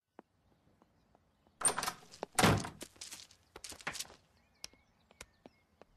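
A door opening and shutting, with the loudest, deepest thunk about two and a half seconds in and a few softer knocks and steps around it. Cartoon sound effects.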